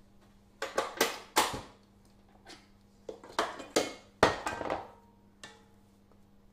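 Clatter of kitchen utensils and a metal mixing bowl being handled on the worktop: two short runs of sharp knocks and clinks, the second about three seconds in.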